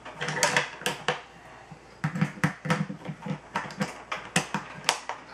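Savage Axis bolt-action rifle being handled: a quick, irregular series of metal clicks and clacks, with a few duller knocks in the middle.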